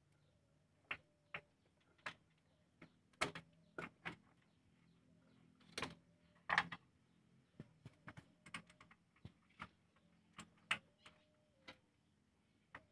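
Sparse, irregular sharp clicks and knocks of metal parts and tools being handled as a clutch slave cylinder is fitted by hand in a car's engine bay.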